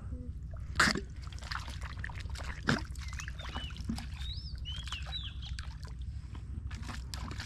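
Rubber boots squelching and splashing through soft mangrove mud and shallow water with each wading step, with two sharper squelches about one and three seconds in. A bird chirps a few times in the middle.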